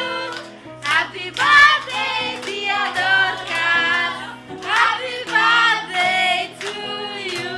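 A song with several singing voices over steady held bass notes.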